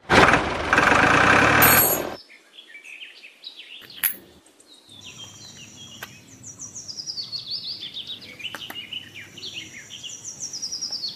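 Birds chirping and singing in quick, repeated trills that step down in pitch, after a loud, noisy sound of about two seconds at the start. There is a single sharp click about four seconds in.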